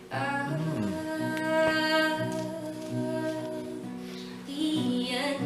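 A woman singing one long held note, with a shorter note near the end, over acoustic guitar, in a live performance of a Portuguese song.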